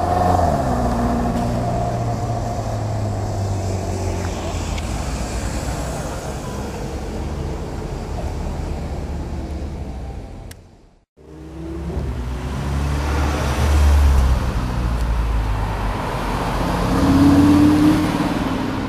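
Ferrari California's V8 passing close by, its pitch falling as it goes, then a steady engine note. After a cut, an Audi R8 pulling away, its engine swelling twice and rising in pitch near the end.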